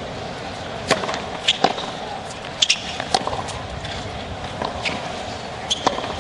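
Tennis rally on a hard court: racquet strikes and ball bounces come as sharp pops, several a few seconds apart. Under them runs a steady murmur of a stadium crowd.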